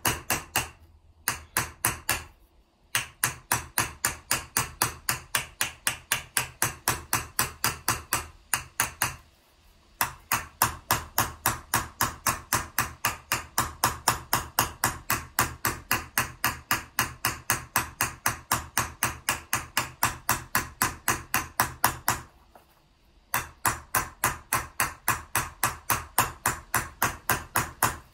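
Round-faced embossing hammer striking a copper vessel on a sandbag, a fast even run of light metallic blows, about five a second, with a few short pauses. This is hammer chasing, driving a concave trench into the vessel wall.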